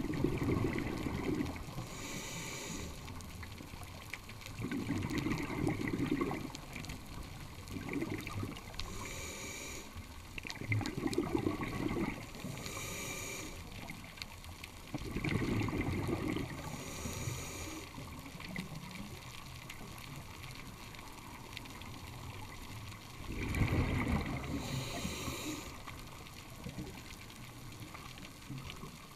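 Scuba diver breathing through a regulator underwater: a short hissing inhale, then a low bubbling rush of exhaled air, repeated several times at an uneven pace.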